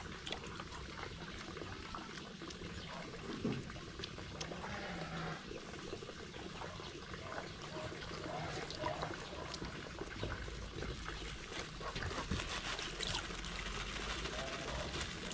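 Water sloshing and splashing in a plastic bucket as it is stirred with a wooden stick, in the last few seconds. Short animal calls are heard now and then before that.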